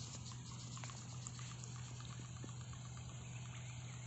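Light trickling and splashing of water stirred by the propeller of a small homemade DC-motor boat, with scattered small ticks over a steady low hum.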